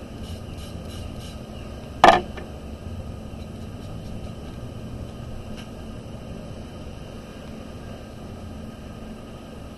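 Light clicks of a water brush tapping and working paint in a metal tin palette, with one loud sharp knock about two seconds in, over a steady low hum.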